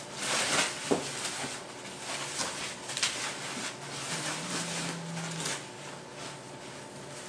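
White plastic packing wrap rustling and crinkling in uneven crackles as it is handled and pulled about inside a cardboard box.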